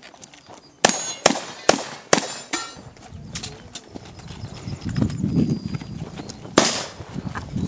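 Shotgun fired in quick succession during a practical shooting stage: four loud shots about half a second apart, a weaker report after them, then a gap of low rumbling and small clicks before one more shot near the end.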